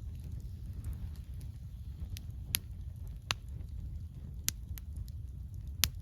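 Wood campfire crackling: a handful of sharp pops, four of them loud and the loudest near the end, over a steady low rumble.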